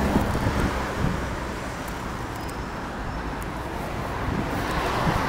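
Steady outdoor noise of wind on the microphone mixed with road traffic, a low rumble under an even hiss.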